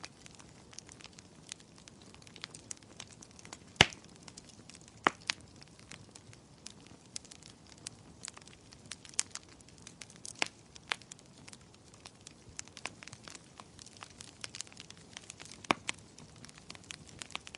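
Wood fire in a fireplace crackling, with irregular sharp pops and snaps over a faint steady hiss. The loudest pop comes about four seconds in.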